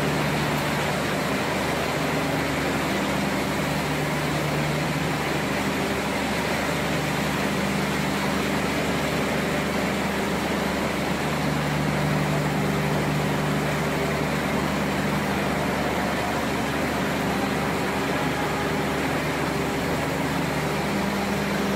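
Factory production-line machinery running: a steady mechanical hum and hiss, with low humming tones that cut in and out every few seconds.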